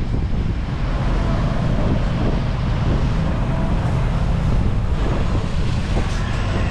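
Wind buffeting the microphone over a steady low rumble, as on the deck of a ferry under way.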